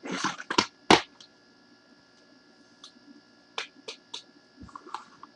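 Hands handling trading cards and their packaging: a burst of rustling with two sharp clicks in the first second, then a few lighter ticks and taps around the middle.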